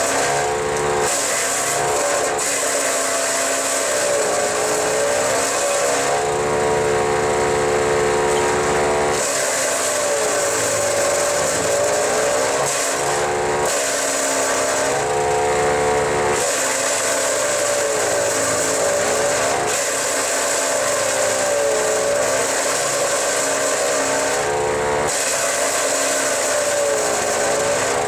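Haecksler compact wood chipper running under load as branches are fed through it: the engine's pitch sags and recovers again and again as each bunch of branches pulls it down, over the rushing, crackling noise of wood being chipped and blown out of the chute. In a few short stretches the chipping eases and the engine holds a steady high speed.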